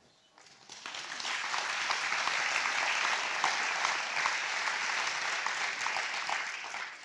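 Audience applauding: the clapping builds up within the first second, holds steady, and dies away near the end.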